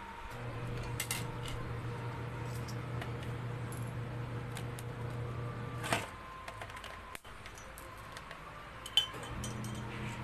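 Metal parts of a dismantled blender motor clinking and knocking as it is handled, with a louder knock about six seconds in and a sharp click near the end, over a steady low hum.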